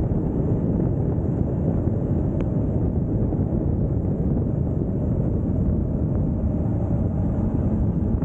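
Steady wind rush buffeting the microphone of a camera riding on a moving motorbike, with the bike's engine running underneath.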